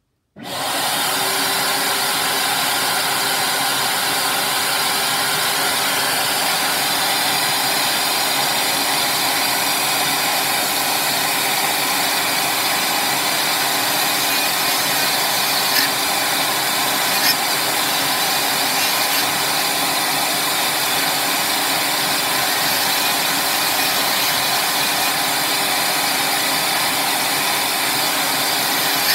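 Dremel rotary tool switching on about half a second in and running at a steady high speed, its thin bit grinding into the plastic housing of a Dallas DS1216 SmartWatch module. There are two brief louder ticks about halfway through.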